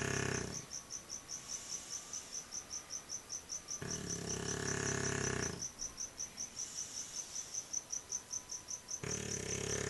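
English bulldog snoring: long pitched snores of about a second and a half each, roughly every five seconds, one tailing off at the start, one about four seconds in and one beginning near the end. A steady high chirping of about four pulses a second runs underneath.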